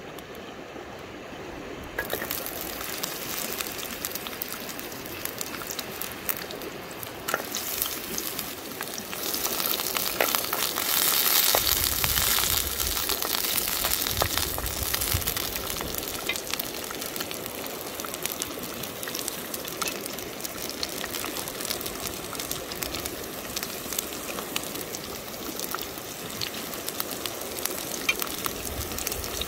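Food sizzling in hot oil in a frying pan, a steady hiss studded with small crackles and pops, louder for a few seconds around the middle.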